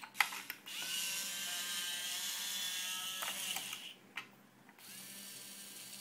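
Small geared DC motors of a toy robot arm whining as the arm moves. There is a click just after the start. The whine runs about three seconds and stops, and a quieter motor whine starts near the end.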